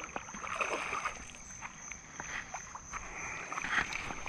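A hooked fish splashing at the surface of a pond as fly line is stripped in by hand, in short irregular splashes and clicks, loudest near the end. A steady high insect trill runs underneath.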